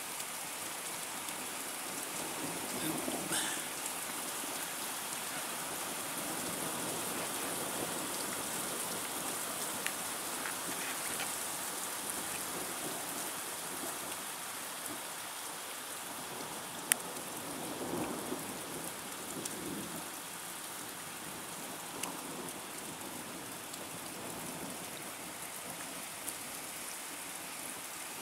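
Steady rain hissing down on tarmac and grass during a thunderstorm, with faint low rumbles of thunder now and then. One sharp click comes about seventeen seconds in.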